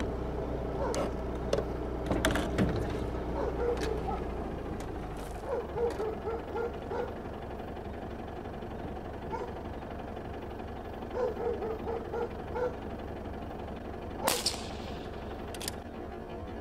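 Vehicle engine idling low, with scattered clicks and two short runs of rapid high notes. A sharp crack about fourteen seconds in, the loudest sound, then a lighter click.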